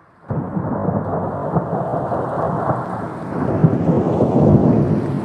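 A steady, low rumbling noise, such as thunder and rain, cutting in abruptly just after the start and swelling louder about three seconds in.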